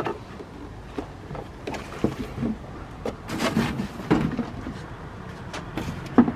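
Cardboard box and packing paper rustling as a truck tow mirror is unpacked and handled, with scattered clicks and knocks, a denser crackling stretch in the middle, and one sharp knock near the end.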